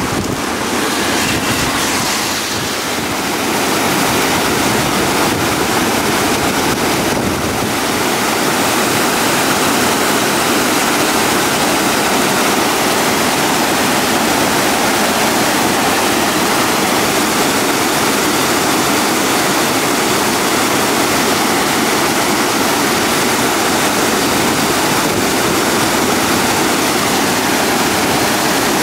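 Monsoon floodwater running high and fast, then churning white water surging beneath a concrete bridge: a loud, steady roar of rushing water. Wind buffets the microphone in the first few seconds.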